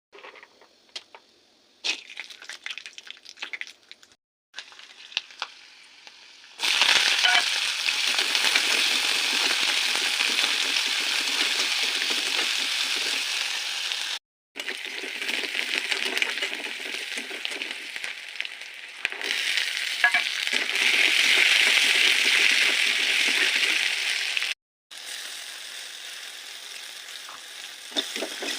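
Food sizzling in hot oil in a pan. Scattered clinks of utensils come first, then a loud, steady sizzle starts about a quarter of the way in. The sizzle cuts off briefly twice and is quieter near the end.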